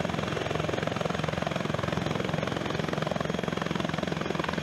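AgustaWestland AW159 Wildcat helicopter in flight: a steady, fast pulsing chop of the rotor blades over a continuous engine hum.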